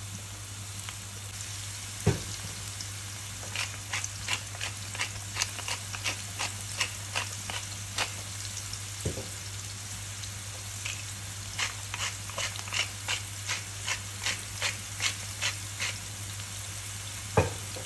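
Diced onion and celery sizzling gently in olive oil in a frying pan on low to medium heat, over a low steady hum. A wooden pepper mill grinds over the pan in two runs of quick clicks, and there are a few single knocks.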